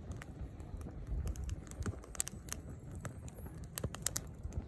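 Burning firewood crackling and popping as the fire catches: irregular sharp snaps, a few louder pops about halfway through and near the end, over a low rumble.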